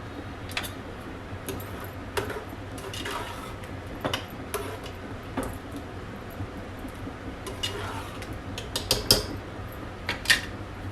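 Metal utensils and cookware clinking and knocking together at irregular intervals over a steady low hum, with a quick run of clinks about nine seconds in and the loudest clink about ten seconds in.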